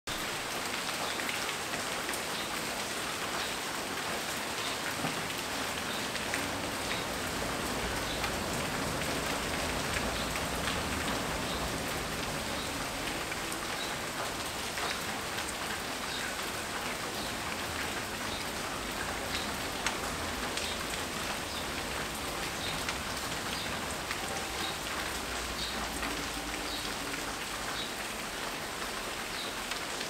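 Steady rain falling, with many individual drops ticking close by.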